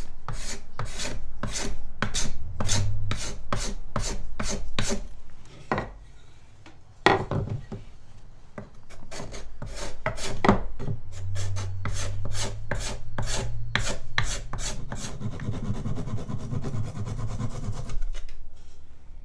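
A hand tool rubbing back and forth on a small block of wood in quick, even strokes, about two or three a second. About a third of the way in the strokes pause, broken by a couple of sharp knocks, then they resume and die away near the end.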